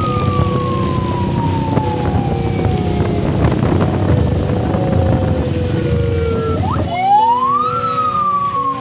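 Police siren wailing in slow, long glides: it falls in pitch, then sweeps up about seven seconds in and falls slowly again. Underneath is a loud rumbling noise that stops abruptly about seven seconds in.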